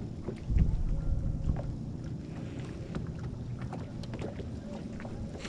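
Uneven low rumble of wind buffeting the microphone and water moving around a small fishing boat, swelling about half a second in, with scattered light clicks and knocks.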